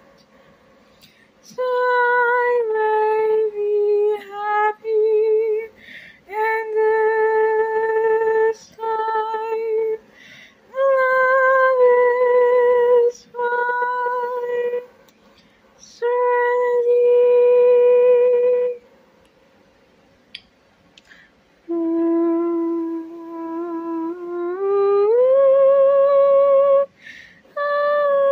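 A single high voice humming a slow, unaccompanied melody in long held notes, some with a slight waver, broken by short pauses between phrases.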